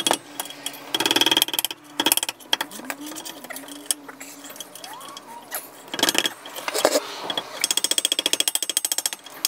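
Ratchet wrench clicking in quick runs, about a second in and again near the end, as the rear brake caliper bracket bolts are worked loose, with a few sharp metal knocks in between.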